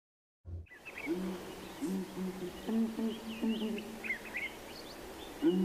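Southern ground hornbills giving their resonant booming call: a series of deep, evenly repeated booms starting about half a second in. Small birds chirp faintly higher up.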